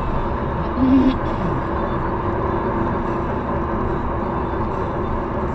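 Steady road and tyre noise of a car driving at highway speed, heard from inside the cabin. About a second in there is a brief, louder short sound over it.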